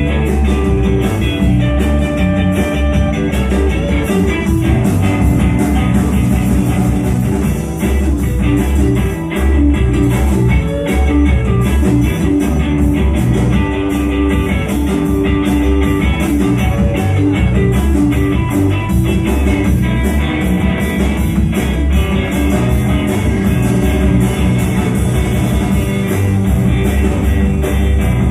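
Live blues-rock band playing loud: electric guitar over bass guitar and a drum kit keeping a steady beat.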